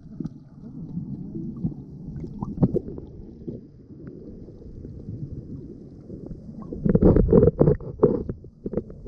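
Muffled underwater noise as heard by a camera below the surface: a low rumbling with gurgling and bubbling, scattered knocks, and a cluster of louder knocks and splashes about seven seconds in.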